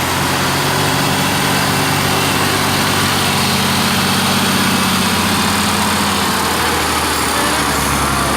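Heavy diesel truck engines running steadily under load in a heavy-haul tow. They give a continuous low drone with no marked rise or fall in pitch.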